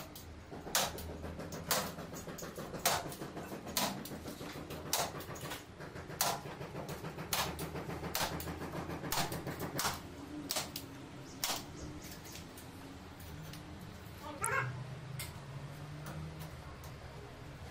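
Sharp metallic clicks about once a second from a hand crimping tool clinching a perforated metal edge bead onto the edge of a plasterboard ceiling panel. They stop about twelve seconds in, and a brief higher-pitched sound follows a couple of seconds later.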